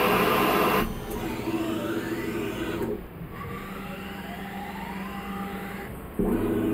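Tormach CNC mill spinning a workpiece at 3000 rpm while a turning tool cuts it; the loud cutting noise stops about a second in. The spindle then runs on with a steady hum while the table's axis drives whine, rising and falling in pitch as the table moves, and a loud stretch like the cutting noise returns briefly near the end.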